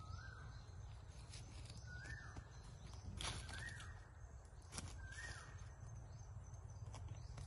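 Chicken caught by the leg in a snare, struggling with sharp wing flaps now and then, and four faint short calls, each rising then falling in pitch, about one and a half seconds apart.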